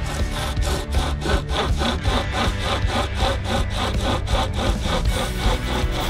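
Hand chainsaw, a length of saw chain pulled back and forth by its strap handles, sawing steadily through a green poplar pole. It rasps in an even rhythm of about three to four strokes a second.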